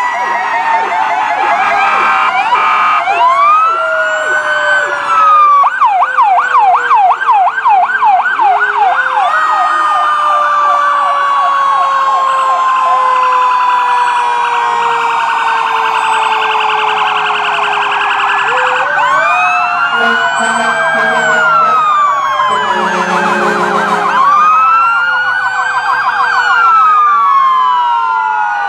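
Several fire truck and ambulance sirens sounding at once as the vehicles pass, slow wails and fast yelps overlapping. One low siren slowly falls in pitch and is wound back up twice, and there is a short horn blast about two-thirds through.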